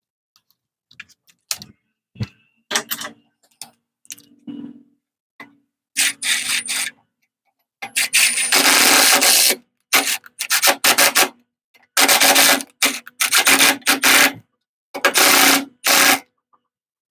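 A bolt being driven into a carburetor bracket on a Tecumseh snowblower engine with a nut driver. A few light clicks are followed by about five bursts of metallic rasping, the longest about two seconds.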